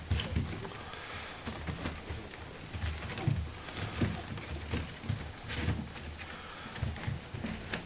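Shetland sheepdog puppies grunting and cooing softly, in short low sounds repeated irregularly, with faint clicks.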